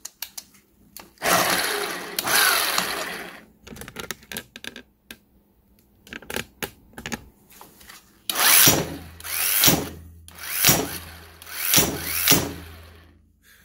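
A burnt-out 12-volt impact wrench's motor running in trigger bursts: one long burst of about two seconds, then small clicks, then four or five short bursts over a low hum near the end. The motor has overheated and is smoking.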